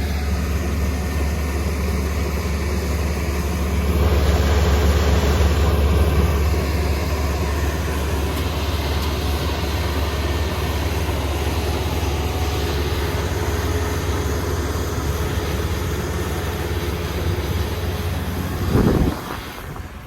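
Rice combine harvester running steadily in the field. It gets louder for a couple of seconds about four seconds in, and there is a brief louder burst just before the end.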